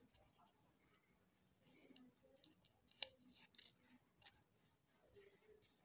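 Faint handling noises: soft rustles and small clicks as a glitter foam-sheet petal and a hot glue gun are handled, with one sharper click about three seconds in.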